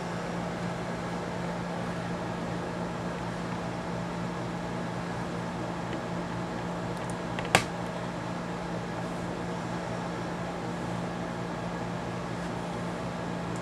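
Steady mechanical hum of running room equipment, with one sharp click about halfway through.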